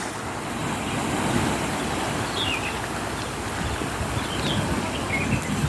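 Sea waves washing, with wind rumbling on the microphone; a few short, faint high chirps come through about two and a half, four and a half and five seconds in.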